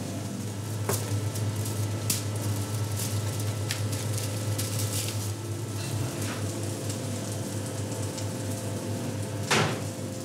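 Kitchen handling sounds: scattered sharp clicks and knocks as a knife and gloved hands work on grilled meat and bread over a slate serving board, over a steady low hum; the loudest knock comes near the end.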